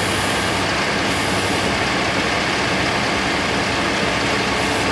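Mahindra tractor's diesel engine running steadily.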